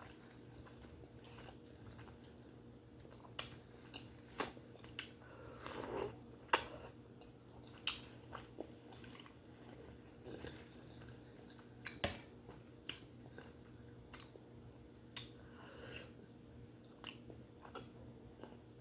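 Close-miked chewing of steamed conch meat: wet mouth clicks and smacks at irregular intervals, the loudest about six and a half and twelve seconds in, over a faint steady hum.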